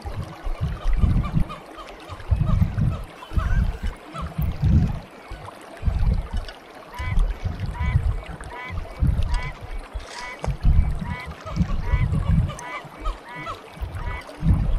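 Outdoor ambience of low, irregular rumbling, with a bird giving short rising calls about twice a second from about halfway through.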